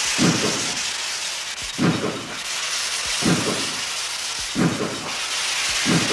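Steam locomotive starting out slowly: five heavy exhaust chuffs, about one every second and a half, over a loud continuous hiss of steam venting from the open cylinder cocks.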